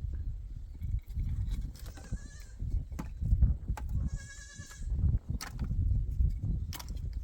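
Livestock bleating: a short wavering bleat about two seconds in and a longer one a little past the middle, with a few sharp knocks and a steady low rumble underneath.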